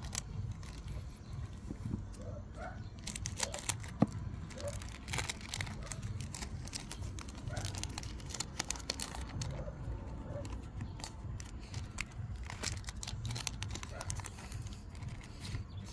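Pokémon card booster pack wrappers crinkling and tearing open, and cards being handled, in a steady run of small crackles and clicks.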